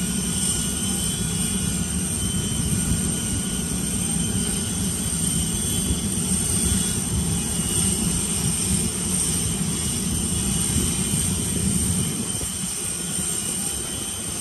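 Steady machinery drone with a faint high whine, even throughout with no sudden sounds.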